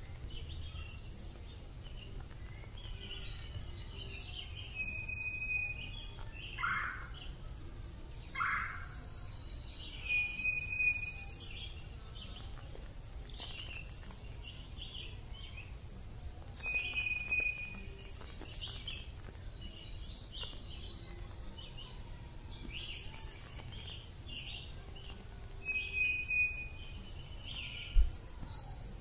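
Birds calling: scattered short chirps and trills, with a brief whistled note that recurs four times, over a steady low outdoor rumble. A single sharp knock near the end.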